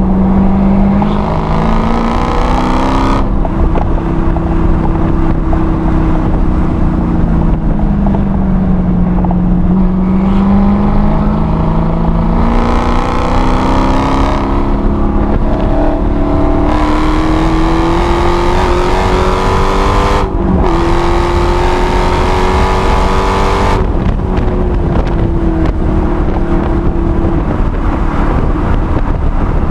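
Supercharged 6.2-litre Hemi V8 of a six-speed Dodge Challenger Hellcat, heard from inside the cabin at track speed. The engine note climbs hard under throttle and falls back each time the driver lifts or brakes for a corner, about four times, with a brief break about twenty seconds in.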